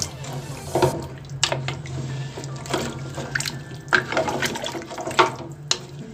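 Wooden spatula stirring water in a metal pot of beef trotters and onions: the water sloshes and splashes, with about eight irregular knocks and scrapes of the spatula against the pot.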